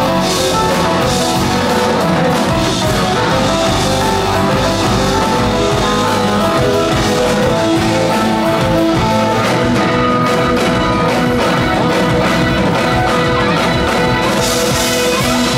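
Live progressive rock band playing loudly: electric guitars, keyboards and drum kit together in a dense, steady instrumental passage.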